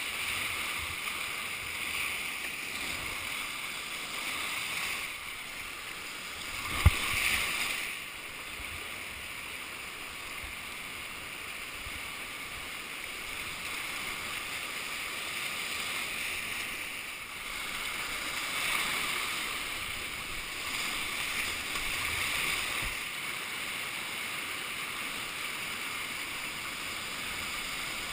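Steady rush of whitewater in a river rapid, heard from a kayak in the waves, swelling louder now and then. A single sharp knock about seven seconds in.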